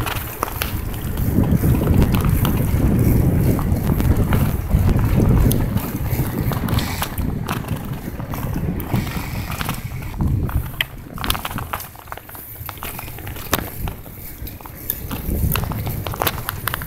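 Wind buffeting the microphone of a phone held while riding a bicycle, heaviest in the first few seconds and then gusting unevenly, with scattered clicks and knocks from the phone being handled and jolted.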